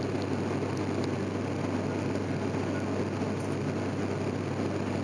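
Steady drone of a propeller airliner heard from inside the cabin: a constant low hum from the propellers under an even rushing noise.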